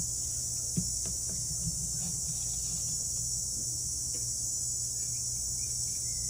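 A hand torch's flame running steadily on a freshly poured silver bar, under a steady high-pitched insect chorus; a faint tap sounds about a second in.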